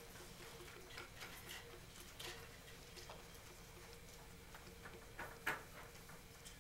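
Faint ticks and scratches of writing, from pencils on paper and a marker on a whiteboard, over a faint steady hum. A sharper click comes about five and a half seconds in.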